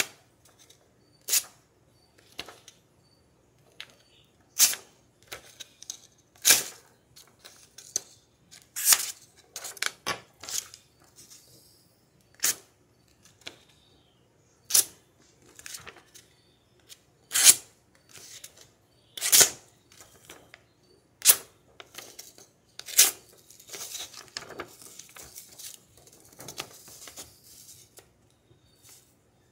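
Serrated butter knife stroked across a flat sharpening stone: short, sharp scraping strokes at irregular intervals, about one every second or two, with a stretch of lighter, more continuous rubbing near the end.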